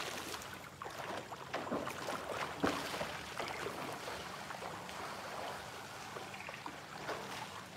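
Pool water splashing and sloshing as a person swims just after jumping in, the splashes thinning out and the churning settling toward the end.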